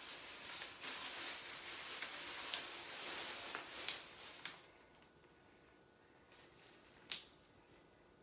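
Plastic bag rustling as hands dig through it, with a few sharp clicks of wooden Jenga blocks knocking together; the rustling stops about halfway through, leaving one more click near the end.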